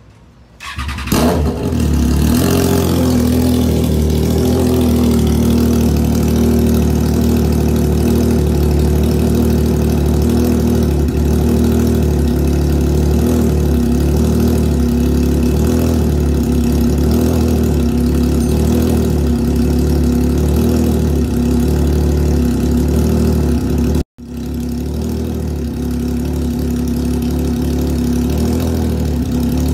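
Triumph Trident 660's inline three-cylinder engine, breathing through a full aftermarket exhaust system, cold-started: it catches within about a second and settles into a steady idle. The sound drops out for an instant about three-quarters of the way through, then the idle carries on.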